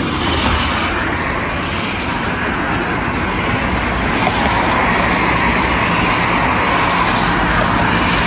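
A heavy machine's engine running steadily under a dense wash of noise with a low hum, getting a little louder about four seconds in.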